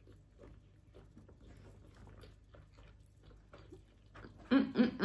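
Close-miked chewing of a soft steamed meat dumpling: faint, irregular wet mouth clicks and smacks. About four and a half seconds in, a loud hummed "mmm" with a gliding pitch breaks in.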